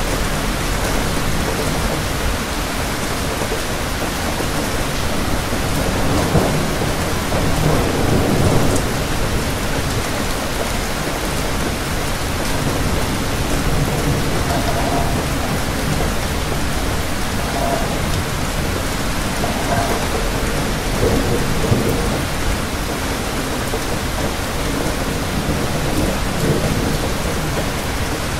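Steady rain falling, with low rumbles of thunder swelling about a quarter of the way in and again about three-quarters through.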